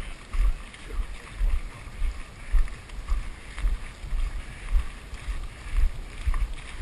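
Rhythmic low thuds about twice a second as running strides jolt a body-worn camera, over wind noise on the microphone.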